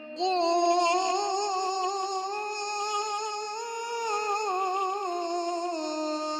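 A Quran reciter's voice holding one long melodic vowel of about six seconds, the pitch wavering with ornaments, rising slowly and then falling near the end. This is the prolonged six-count vowel of 'aḍ-ḍāllīn' in chanted tajwid recitation.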